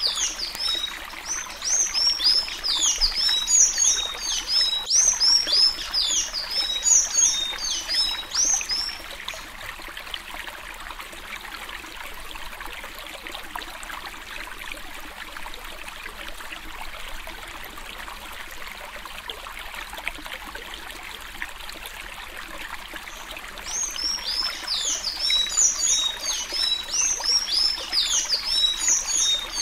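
Blue-gray tanager (sanhaço-azul) singing the 'suí suí alagoano' song, a rapid run of high, sweeping whistled notes over a steady hiss. The song stops about nine seconds in and starts again some fourteen seconds later.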